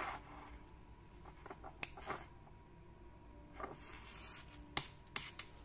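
Small metallic clicks and faint scraping from a stainless steel mesh watch band's sliding clasp being worked with a small screwdriver. A sharp click comes about two seconds in, and several more come close together near the end.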